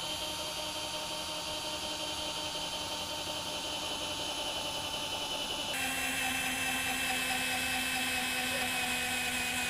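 Cordless drill with a 5/16-inch bit boring into the aluminum of a snow plow blade, its motor running in a steady whine. The pitch of the whine changes suddenly about six seconds in.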